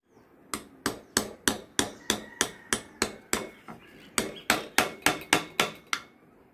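Wood-carving chisel being tapped into a wooden blank, about three sharp strikes a second, with a brief pause a little past halfway.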